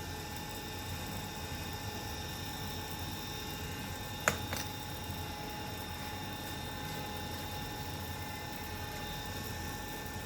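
Small electric motor of a table fan running with a steady whir and hum, with two sharp clicks about four seconds in, the second fainter.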